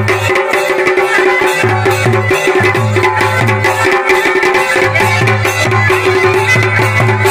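Kumaoni chhaliya wedding-band music: dhol and damau drums beating a quick, repeating rhythm under a masakbeen (bagpipe) playing over a steady held drone.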